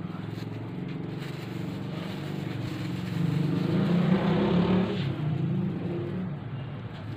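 A motor vehicle engine running steadily, growing louder about three seconds in and easing off again after about five seconds.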